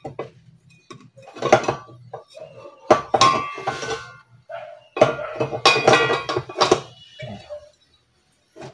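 Stainless-steel gas stove burner parts clinking and scraping as they are fitted back onto the burner base: a run of metal knocks, some with brief ringing, busiest about three seconds in and again from five to seven seconds.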